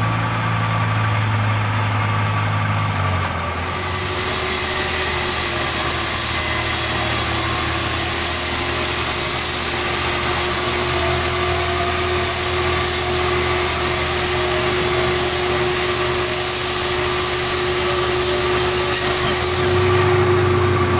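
An engine runs with a low hum; about three and a half seconds in, a hand-held concrete saw starts cutting into the bridge's concrete with a loud, steady, high hiss and whine that goes on without a break.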